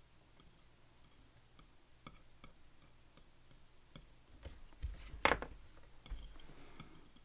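Small metal lock parts being handled on a hard surface: light scattered clicks, then a sharp ringing clink about five seconds in as a pin or part is set down or dropped.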